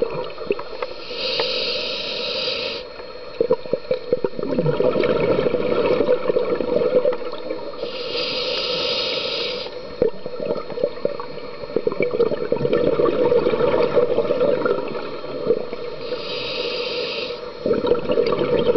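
Scuba diver breathing through a regulator underwater: three inhalations heard as short hisses, about every seven to eight seconds, each followed by a long bubbling exhalation.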